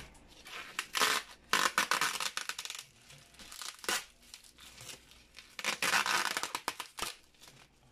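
Bubble wrap and plastic film crinkling and crackling under hands picking at the wrapping, in several bursts.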